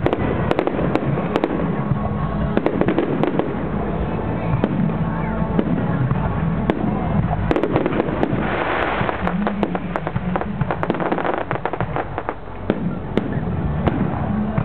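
Aerial firework shells bursting in quick succession: many sharp bangs and crackles, with a denser hissing crackle about halfway through.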